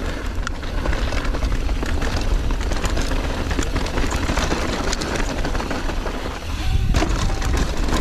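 Mountain bike running down a dirt bike-park trail: a steady heavy rumble of wind on the action camera's microphone over tyre noise, with the bike rattling and clicking over bumps throughout.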